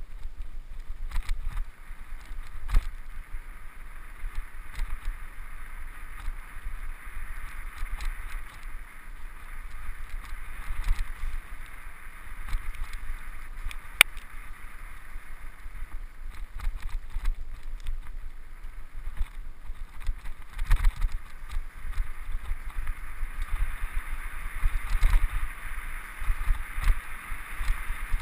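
Mountain bike rolling along a rough trail, recorded by a camera on the bike: wind rumbling on the microphone, with a steady hiss of rolling and frequent short clicks and knocks from the bike rattling over bumps, one sharp knock about halfway through.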